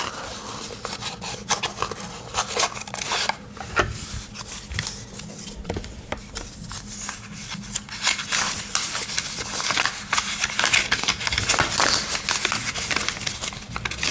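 Close-up handling of a cardboard knife box and its packaging: rustling with many small clicks and taps as it is searched for the paperwork, getting busier and louder in the second half.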